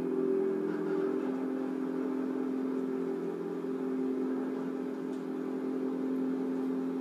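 Ship's machinery running with a steady, even hum, its main tone stepping down to a lower pitch about a second in, heard played back through a TV speaker.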